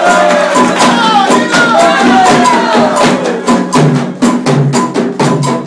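Candomblé chant and percussion: voices singing over hand percussion, the singing falling away about halfway through while sharp percussion strikes keep a steady, quick beat.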